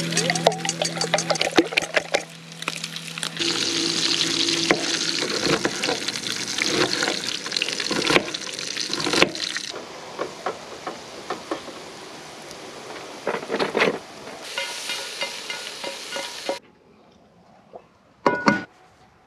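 Food sizzling in a frying pan while a utensil stirs and scrapes it, with a steady low hum in the first few seconds. Near the end it goes quiet except for one short knock.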